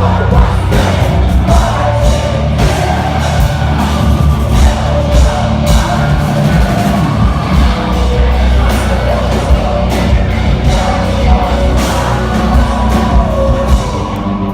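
Heavy rock music: a band playing with drums, distorted guitars and singing.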